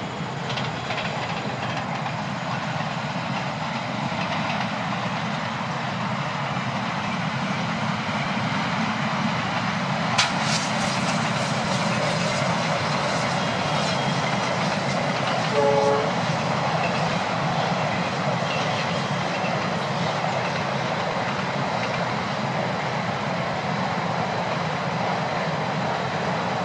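Long passenger train running along the line, a steady rumble of wheels and coaches. There is one sharp knock a little over a third of the way in, and a short horn blast just past halfway.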